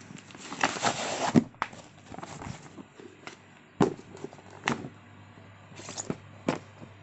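A burst of rustling about a second in, then a few separate sharp knocks at uneven intervals.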